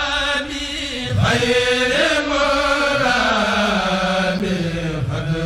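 Background music carried by a melodic voice holding long notes that slide in pitch.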